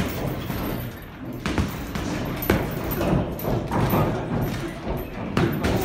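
Several irregular thuds from two boxers sparring in the ring, from gloved punches and footwork on the canvas.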